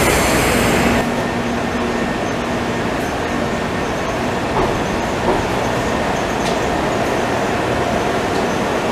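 Taipei Metro train running into an elevated station and drawing up along the platform: a steady rumble of wheels and traction motors with a low hum, and two short clunks around the middle. About a second in, the noise of a departing train cuts off abruptly.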